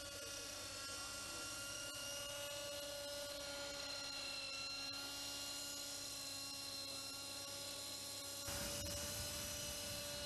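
Radio-controlled model helicopter in flight: a steady high whine with several overtones that drifts slightly in pitch. About eight and a half seconds in it grows louder, with more low rumble.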